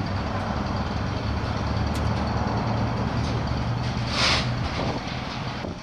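A steady, low engine-like rumble, with a short loud hiss about four seconds in.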